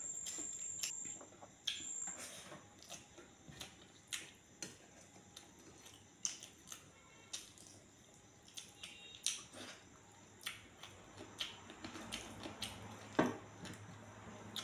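Close-up eating sounds: wet chewing and lip smacks of someone eating rice mixed with dal and chicken by hand, heard as irregular short clicks about once or twice a second, with one louder click near the end.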